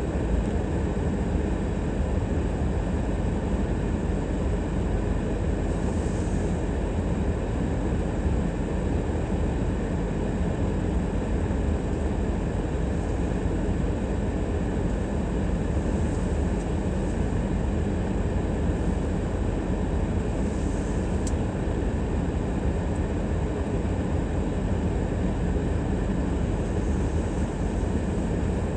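Steady road and engine noise of a car driving, with a few brief hisses.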